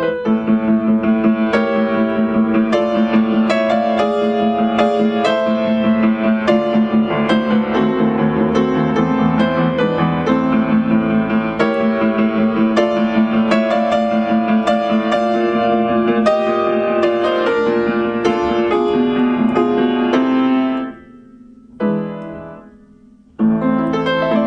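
Instrumental Christmas piano music. It drops away about 21 seconds in, with one brief note in the gap, then starts again near the end.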